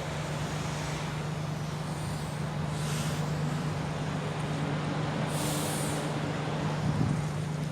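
City bus running with a steady engine hum, and two short hisses of air from its air brakes, about three and five and a half seconds in.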